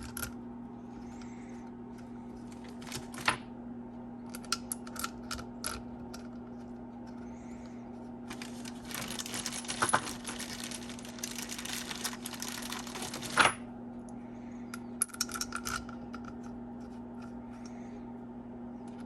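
Small metal engine parts clinking, tapping and rattling as they are handled, with a longer run of rattling and scraping in the middle that ends in a sharper knock.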